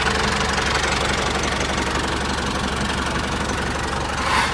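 Small motor of a DIY mini tractor running steadily with a fast, even chugging, its pitch and level holding constant.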